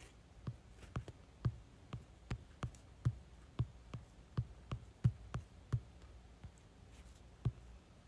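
A series of soft, short knocks or taps at uneven spacing, roughly two a second, each with a low thud.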